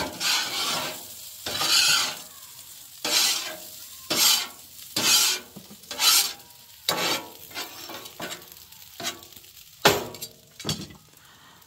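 A utensil stirring and scraping food that is frying in a pot, in strokes about once a second, with sizzling underneath.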